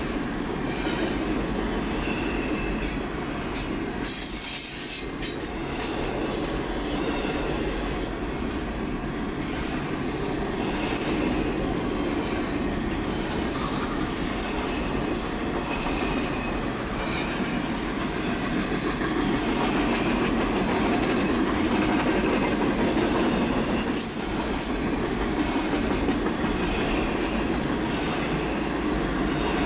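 Double-stack intermodal freight train rolling past: a steady rumble of container-laden well cars on the rails, with many short wheel clicks and an occasional faint wheel squeal.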